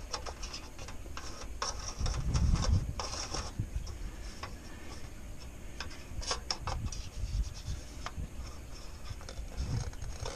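Sharpie marker scratching and squeaking in short strokes on a steel roof panel as a circle is traced, with light clicks and rubs of the metal base plate held against the roof. A low rumble about two seconds in.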